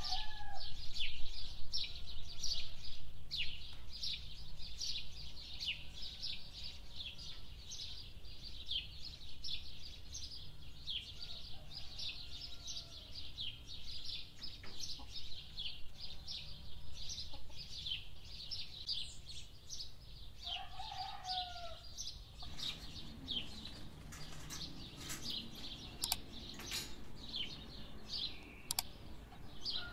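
Many small birds chirping quickly and without a break, with a chicken's lower, drawn-out call a few times. A few light clinks of cutlery on plates come near the end.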